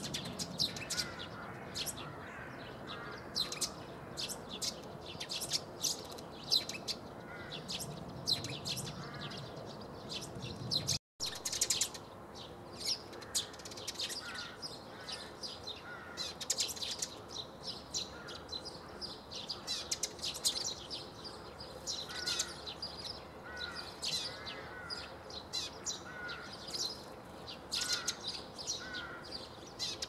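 Eurasian tree sparrows chirping: a busy stream of short, sharp chirps that runs on without pause, cutting out for a moment about eleven seconds in.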